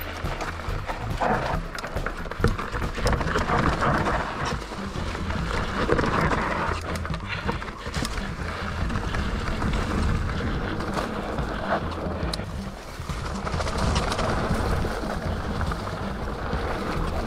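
Wind rumbling on the microphone, with the rattling and knocks of a mountain bike ridden over rough ground.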